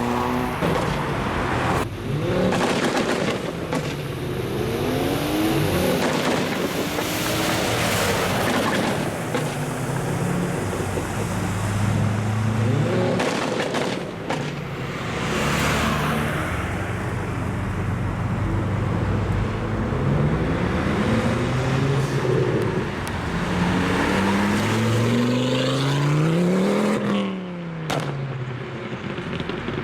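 Tuned performance car engines revving and accelerating hard, the engine note climbing and dropping again and again, with several sharp exhaust pops and bangs between the revs.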